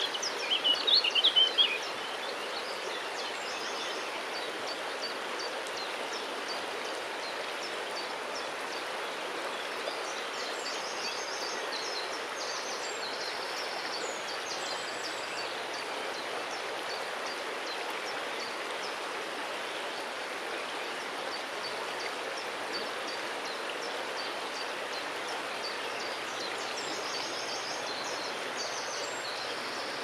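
Shallow river water flowing past a half-submerged stone, a steady rush of water. A bird chirps in a short, loud burst of high notes about a second in, and fainter high chirps come and go twice later on.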